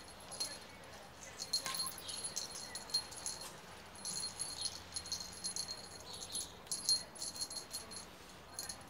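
A kitten's collar jingling in quick, irregular bursts of high tinkling as the kitten squirms and paws at it, trying to get the collar off.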